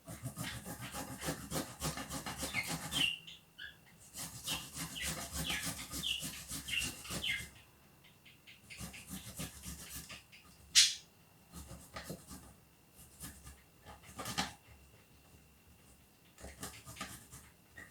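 Peeled fresh ginger root grated on a fine hand grater: quick, rhythmic scraping strokes in runs of a few seconds with short pauses. A single sharp knock about eleven seconds in, and short high squeaks among the strokes in the first half.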